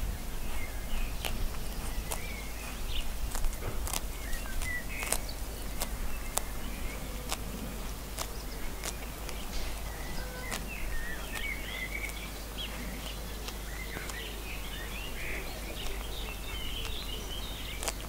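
A lamb grazing close by, tearing and chewing grass in a scatter of short sharp clicks, while small birds chirp, more busily in the second half.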